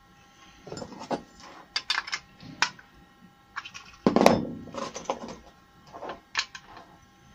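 Metal parts of a gravity-fed spray gun being handled and fitted back together during cleaning: irregular clicks, taps and scrapes, with a fuller knock about four seconds in.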